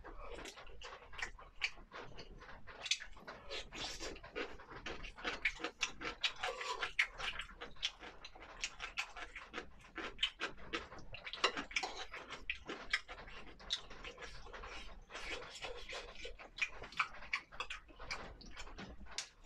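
Close-miked eating: a person chewing and smacking through a mouthful of fish and rice, with many quick wet clicks of lips and tongue.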